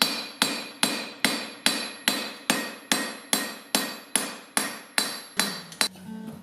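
A smaller hand hammer striking hot steel on an anvil in a steady rhythm of about two and a half blows a second, each blow ringing briefly. The hammering stops near the end and background music comes in.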